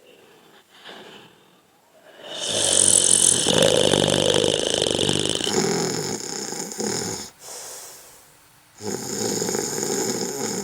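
A person snoring: two long, loud snores with a quiet pause between them, the second cut off abruptly near the end.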